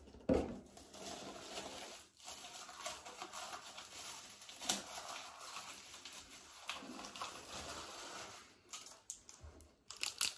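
Faint, irregular rustling and crinkling of plastic and foam packaging as an alarm clock is unwrapped by hand, with a few sharper crackles near the end.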